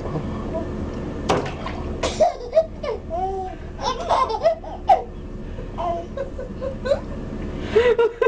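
Babies babbling and laughing in short, high-pitched squeals and giggles.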